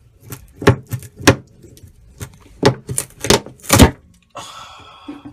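About eight hard knocks in uneven runs, typical of blows striking an old skin fitting fibreglassed into a boat's hull to drive it out. A short hissing rush follows near the end.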